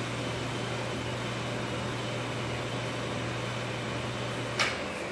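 Electric motor running with a steady hum, stopping with a sharp click near the end.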